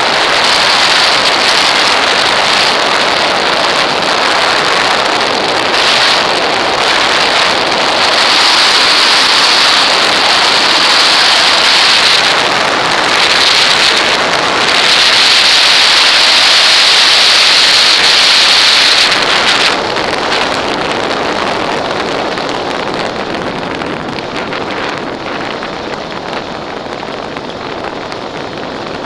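Airflow rushing over a wing-mounted camera on an aircraft coming in to land, a loud, steady hiss. About two-thirds through the hiss drops sharply and then fades steadily as the aircraft slows along the runway.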